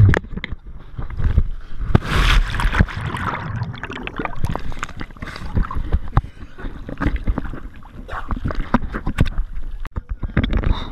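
Lake water splashing, sloshing and gurgling against a camera held at the water's surface by a swimmer, with a louder splash about two seconds in and many short choppy slaps throughout.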